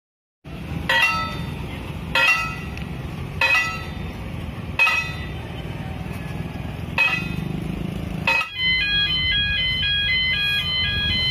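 Indonesian railway level-crossing alarm, the 'Alarm Indonesia' type, starting about eight seconds in and playing a repeating pattern of several alternating electronic tones. Before it there is a low rumble with a loud ringing strike every one to two seconds.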